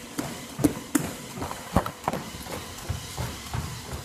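Irregular knocks and thumps, about one or two a second and the loudest a little under two seconds in, from a rubber medicine ball and hands bumping against the phone as it is handled close up.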